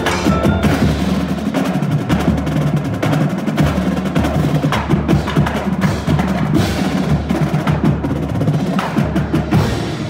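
Marching band drumline, with snare, tenor and bass drums, playing a fast, dense rhythmic passage.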